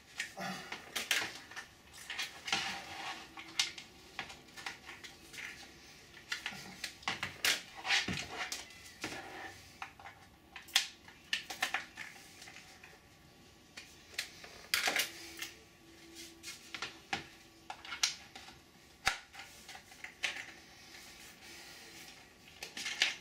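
Two-part 3D-printed ABS mould being handled and its alignment pins worked out: irregular plastic clicks, taps and short scrapes, with a few sharper knocks scattered through.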